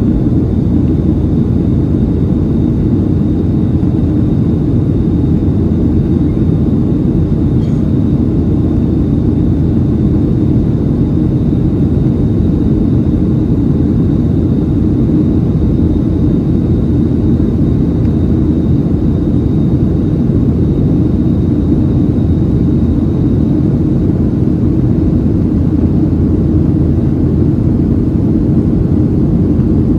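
Steady cabin noise of a Boeing 737-700 in its climb: a deep, even rumble of its CFM56 turbofan engines and airflow heard from a window seat. A faint steady high whine sits over it and fades away about three-quarters of the way through.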